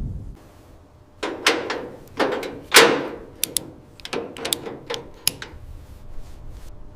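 A string of irregular knocks and clicks, like hard parts being handled or set down, with the loudest knock about three seconds in.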